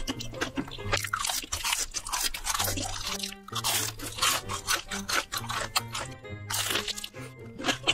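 Close-miked crunching and chewing of a big burger mouthful, with background music playing.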